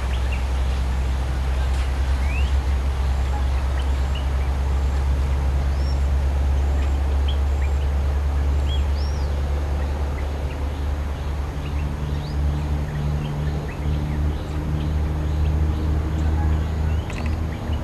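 Bulbuls calling with short, scattered upslurred chirps, over a steady low rumble; a low droning hum joins about two-thirds of the way through.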